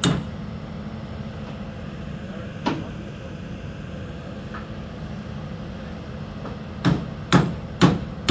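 Hammer blows on the metal framework of a funfair ride being built up: one strike at the start, another near three seconds, then four quick strikes about half a second apart near the end, over a steady low hum.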